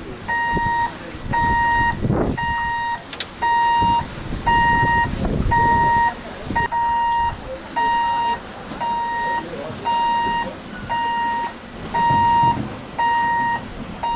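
Warning beeper of a small battery-electric jetty-train locomotive, about one half-second beep a second on a single steady tone, sounding while the loco manoeuvres off its rails. A low, uneven rumble runs underneath.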